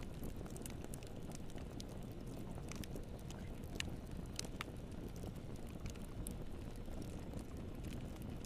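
Fire burning in a fireplace: a steady low rumble of flames with scattered sharp crackles and pops, a few louder pops near the middle.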